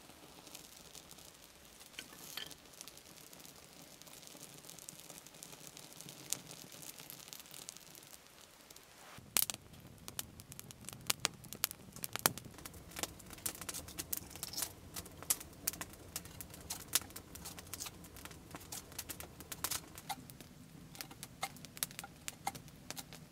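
A small fire crackling: faint scattered ticks of birch bark catching light at first, then, from about nine seconds in, a twig campfire crackling with dense, irregular sharp snaps.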